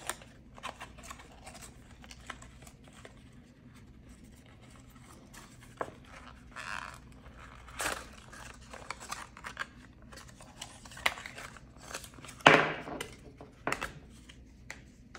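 Paperboard packaging rustling and crinkling as it is handled, with light clicks and scrapes while a charging puck and its cable are worked out of their paper tray. A few louder rustles, the loudest near the end.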